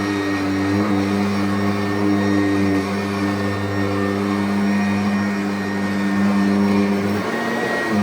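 Customized 2016 Kirby Avalir upright vacuum running with a ten-blade aluminum Sanitronic fan: a loud, steady motor hum with a thin high whine over it and small wavers in tone. The fan swap gives it an older, vintage Kirby sound.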